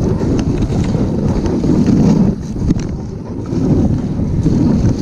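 Dog sled gliding over a snow trail: a steady rushing of the runners on the snow mixed with wind buffeting the microphone, easing briefly about halfway through.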